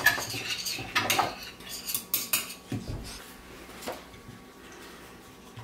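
Sticks and paint bottles clinking and knocking against glass mixing bowls and a tray, a string of sharp clicks in the first four seconds that then thins out.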